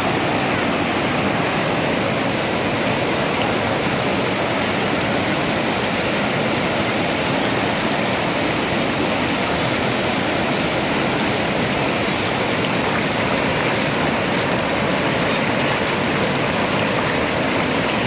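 Kali River running high through whitewater rapids: a steady, loud rush of water with no break.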